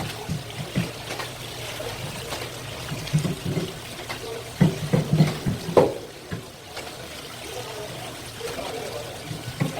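Running water trickling, with irregular knocks and clatter over it and a cluster of sharper knocks about halfway through.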